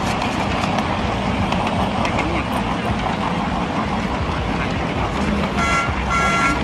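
Miniature ride-on train and its open carriages running along the track: a steady rumble and rattle. Near the end, two short high beeps sound one after the other.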